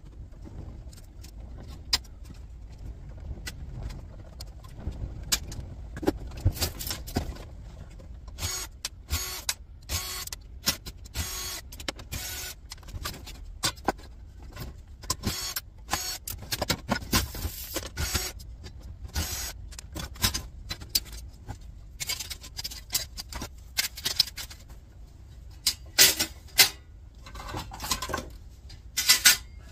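Sheet-metal chassis panels of a dismantled CD burner tower being handled and pulled apart: many short metallic clanks, knocks and rattles, coming thick and irregular from about eight seconds in, over a low steady rumble.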